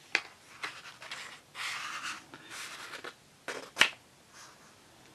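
A paperback colouring book's paper page being turned by hand. A few light ticks and a couple of seconds of rustling and sliding paper come first, then a sharp flick of the page about four seconds in.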